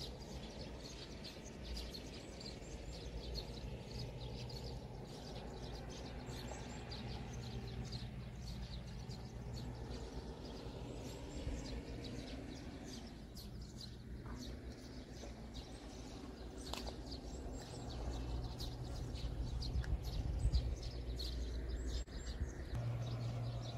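Small birds chirping again and again over a low, steady background rumble.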